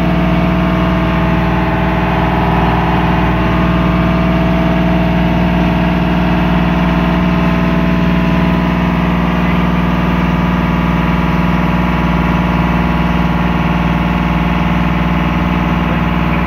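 Small wooden boat's engine running steadily under way, a constant loud drone with a strong low hum that holds the same pitch throughout.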